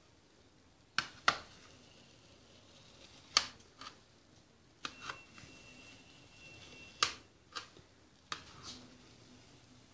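Knife cutting through a tray of basbousa, semolina cake, and clicking against the metal baking tray: about eight sharp, separate clicks at irregular intervals, the loudest a little after the start and about three and seven seconds in.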